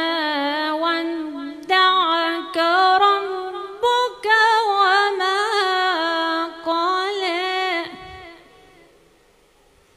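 A woman's solo voice reciting the Quran in a melodic Moroccan style, drawing out long ornamented phrases with wavering pitch. The voice fades out about eight seconds in.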